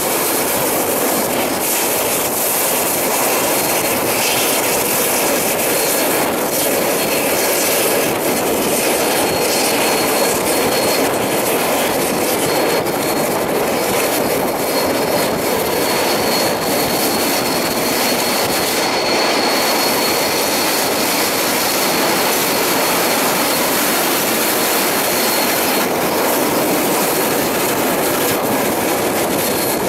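Steam-hauled excursion train behind locomotive Ja 1271 running at speed: a steady rushing noise of wheels on rail, with a faint high whine through much of it.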